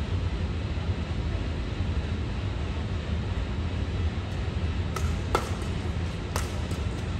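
Steady low hum of hall background noise, then about five seconds in a badminton rally starts: three sharp racket strikes on the shuttlecock, the first two close together and the third a second later.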